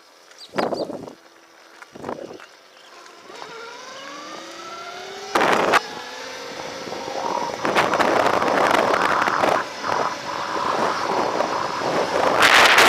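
Throne SRPNT electric motorcycle pulling away: its motor whine climbs in pitch a few seconds in as it speeds up. Then wind noise on the microphone builds and grows loud as speed rises, with a few short gusts before that.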